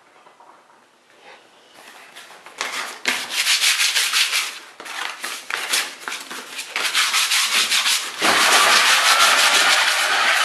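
Sanding or rubbing on a hard surface: rapid back-and-forth rasping strokes begin about two seconds in and grow louder, merging into a continuous loud hiss with a faint rising whine near the end.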